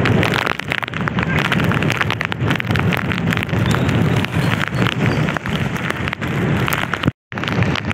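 Heavy rain, with dense close raindrop hits pattering on the phone and plastic raincoat and wind buffeting the microphone. The sound cuts out for a moment about seven seconds in.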